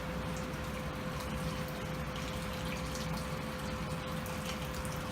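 Just-boiled water poured steadily over chicken bones, a continuous splashing pour. A faint steady hum runs underneath.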